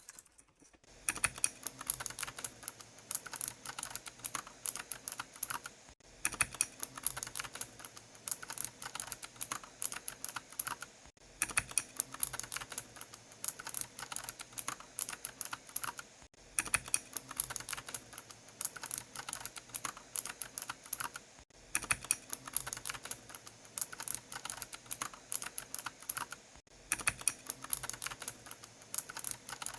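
Typing on a Mojo68 mechanical keyboard: a steady stream of rapid key clicks, broken by brief pauses about every five seconds.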